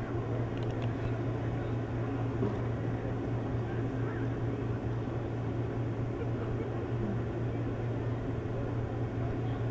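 A steady low drone, an even hum that holds without change.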